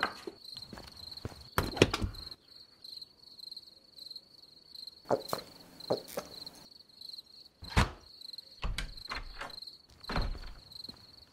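A cricket chirring steadily in a high, pulsing trill, with scattered knocks and thumps every second or two.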